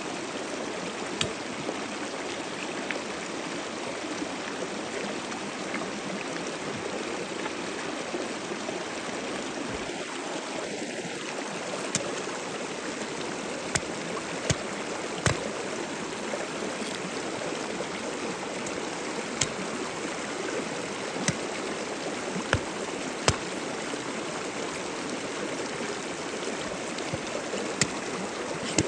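Steady rushing of a river or stream, with scattered sharp clicks every second or two and a brief faint chirp about ten seconds in.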